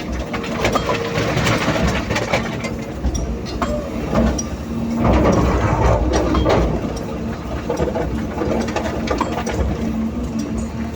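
Hydraulic excavator working: its diesel engine running steadily under many clanking and rattling knocks. The sound grows louder and noisier about a second in and again around five to seven seconds in.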